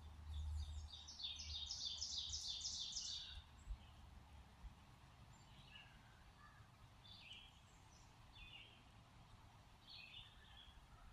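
Wild songbird singing: a fast run of repeated high downward notes for about three seconds, then short separate chirps every second or two. A low rumble lies underneath and fades after about three seconds.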